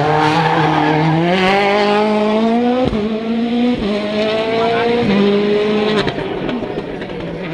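Rally car engine accelerating hard past the listener, its tone climbing, with quick sharp gear changes about three, four, five and six seconds in. It then fades as the car drives away.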